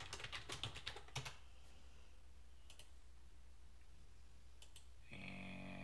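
Computer keyboard typing, a quick run of keystrokes that stops about a second and a half in, then a few separate mouse clicks. Near the end a steady hum-like pitched tone comes in.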